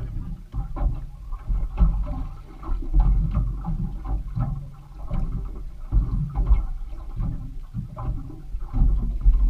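Water slapping and sloshing against the hull of a small fishing boat rocking at sea, an uneven low rumble that swells and falls every second or so.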